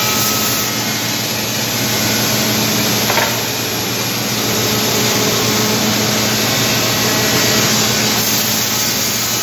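Woodmaster five-axis CNC router's spindle milling a wooden chair-seat blank: a loud, steady hiss of cutting with a steady low hum under it.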